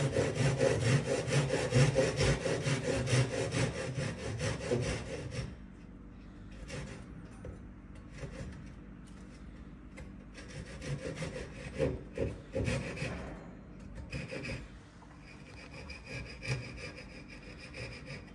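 Japanese saw cutting through a small piece of softwood clamped in a bench vise: quick, steady strokes for about the first five seconds, then slower, lighter strokes as the cut finishes, cutting off a wedge.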